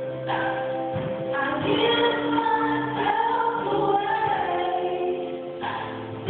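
A woman singing solo into a handheld microphone, holding long notes.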